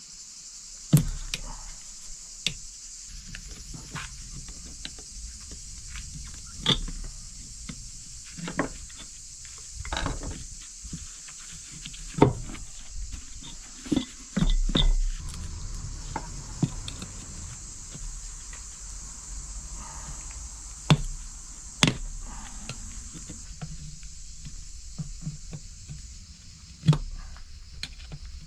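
Scattered knocks and clinks of metal, irregular and sometimes loud, over a steady high chirring of crickets.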